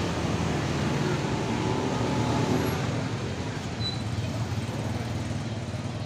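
Steady outdoor traffic noise with a low engine hum and faint voices in the background.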